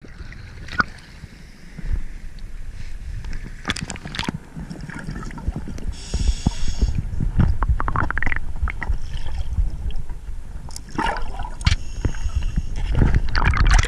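Water sloshing and gurgling heard through an underwater camera at an ice-diving hole, with a low rumble and scattered sharp knocks and clicks. A hissing burst about six seconds in and again near the end.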